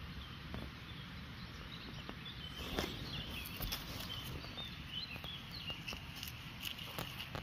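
Small birds chirping and twittering, with scattered clicks and crackles of dry leaf litter and twigs being disturbed, the loudest about three seconds in, over a steady low rumble.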